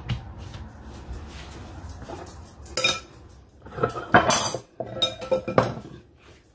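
A cloth wiping softly over damp corn husks, then a run of kitchenware knocks and clinks on the counter, the loudest cluster about four seconds in.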